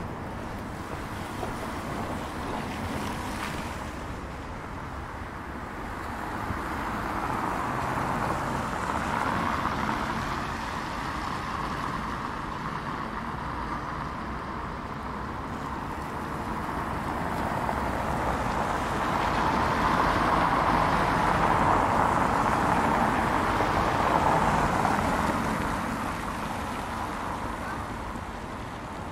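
Street traffic: vehicles passing as a steady hiss that swells and fades twice.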